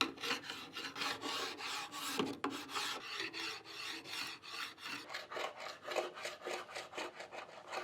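Hand tool scraping or scrubbing paint off a wooden surface in quick, rhythmic strokes, several a second, as the chemically softened paint layers are worked off the walnut.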